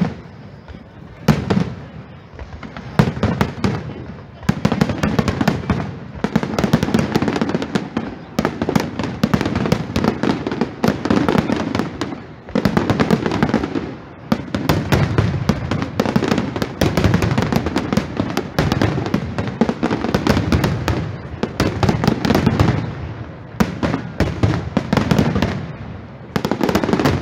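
Aerial fireworks display: a rapid, almost unbroken barrage of shell bursts, deep booms and crackling, easing off briefly every few seconds before building again.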